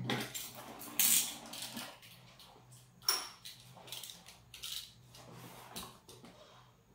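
Long cardboard box being handled and turned over on a wooden tabletop: a few knocks and scrapes with some rustling, the loudest about a second in.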